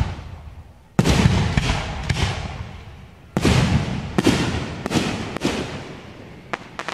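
Aerial fireworks going off: a loud boom about a second in and another at about three and a half seconds, each followed by a crackling tail, then several more sharp bangs in quick succession.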